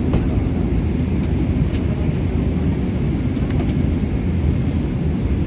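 Steady low rumble of an airliner's engines and airflow heard inside the passenger cabin, with a few faint clicks.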